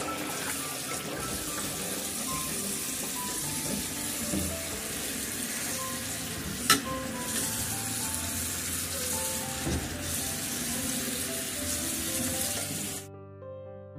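Tap water running steadily onto a whole hilsa fish and into a metal pot as hands rinse it, then cutting off suddenly about a second before the end. One sharp click comes about halfway through, and soft piano music plays underneath.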